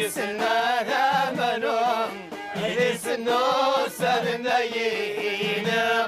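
Music with a solo voice singing long, wavering, ornamented lines in a Middle Eastern style over a steady low drone.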